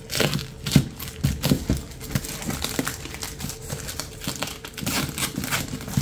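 White plastic courier mailer bag crinkling and rustling in a quick, irregular run of crackles as it is handled and cut open with scissors.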